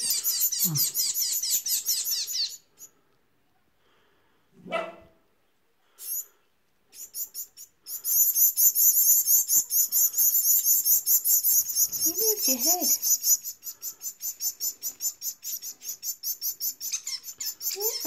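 Fledgling parrot finches giving rapid, high-pitched begging calls, many per second, while being fed from a syringe. The calling breaks off after about two seconds and resumes loudest about eight seconds in. A brief lower sound comes about five seconds in.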